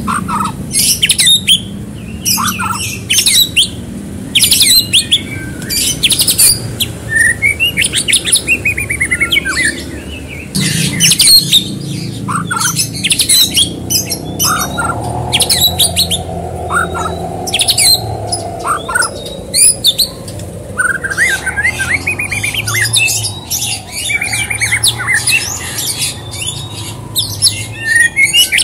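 White-rumped shama (murai batu) in full song: a long, varied run of sharp rapid chips and rattles mixed with short whistled notes, some sliding up or down, over a low steady background hum.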